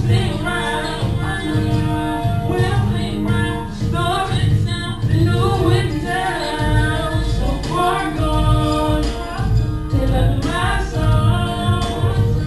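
Music: a sung lead vocal over a backing track with a pulsing bass beat.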